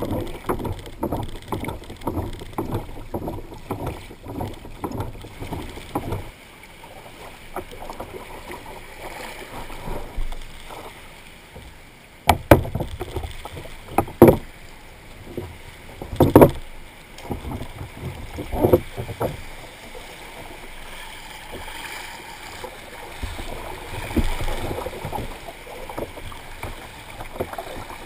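Water sloshing and slapping against a plastic kayak hull in shallow chop, rhythmic for the first few seconds. Four sharp knocks on the hull come in the middle.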